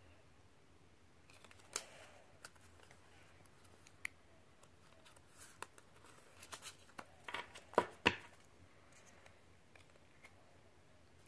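Pokémon trading cards being handled: faint sliding and rustling of cardstock as the cards are fanned and stacked, with scattered sharp clicks, the loudest two a little under eight seconds in.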